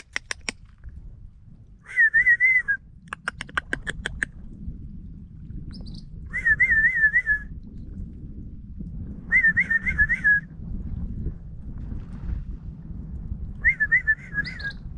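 A person whistling a short warbling note four times, a few seconds apart, with two quick runs of tongue clicks at the start and about three seconds in, calling to deer the way one calls a puppy. A low steady rumble of wind on the microphone lies underneath.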